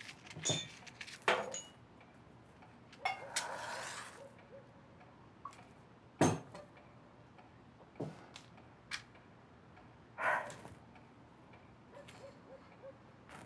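Quiet room with scattered handling noises: a rustle about three seconds in, a sharp knock about six seconds in, a few softer clicks, and faint ticking near the end.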